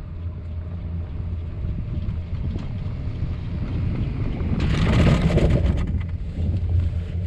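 Tram running with a steady low rumble, wind buffeting the microphone. About two-thirds of the way through, a louder stretch of clattering and hiss lasts a little over a second.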